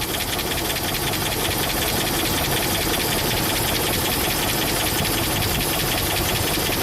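Dodge Ram 5.7 Hemi V8 idling with the cylinder 6 ignition coil unplugged, running steadily with a rapid, even tapping. Unplugging that coil makes no difference, a sign that cylinder 6 is already dead, which the mechanic puts down to missing compression or something else.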